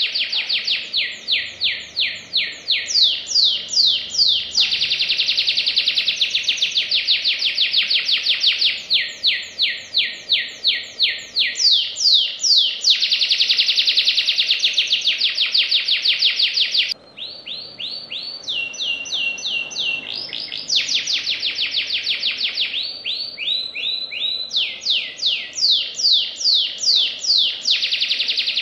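Domestic canary singing a long, unbroken song of very fast trills, one rapid rolled phrase straight after another. A little past halfway it drops for a few seconds into quieter, lower trills, then the high fast rolls return.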